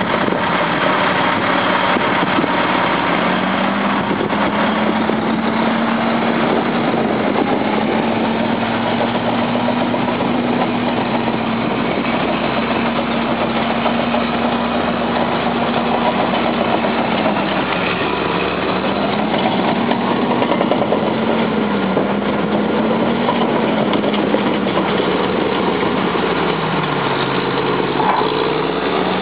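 Heavy diesel engines of a semi tractor and a crawler bulldozer working together as the dozer pushes a mud-bogged garbage trailer. The engine speed climbs a few seconds in, then sags and recovers several times, dipping once more near the end.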